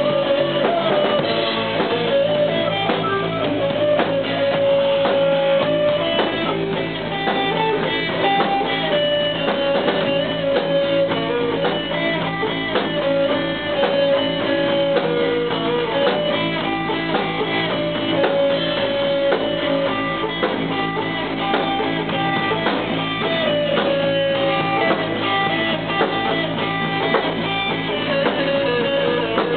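Music led by guitar, playing steadily without a break, with a melody line running through it.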